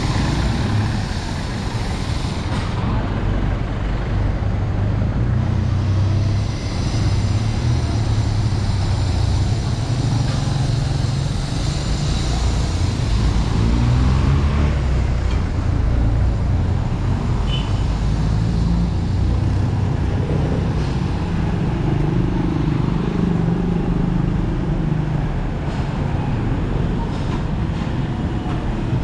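City street traffic: engines of cars, jeepneys and motorcycles running and passing, a steady low rumble.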